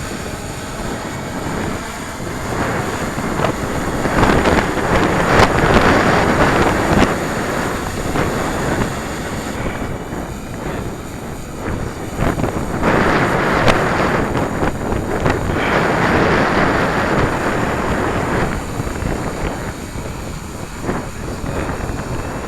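Strong gusting wind buffeting the microphone, a rough rushing noise that swells and eases in several gusts.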